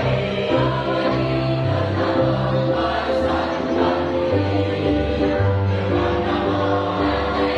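A school choir singing in several parts at once, holding notes that change every half second or so.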